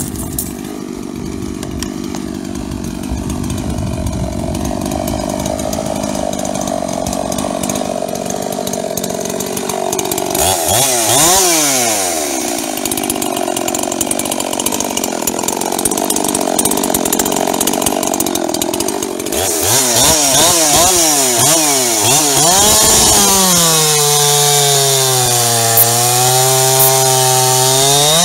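Jonsered 2036 two-stroke chainsaw, modified with full ceramics, ported top and bottom end and a reworked exhaust. It runs steadily at first, is revved up and down about eleven seconds in and again near twenty seconds, then is held at high revs through a cut into a log, its pitch sagging a little and recovering under load.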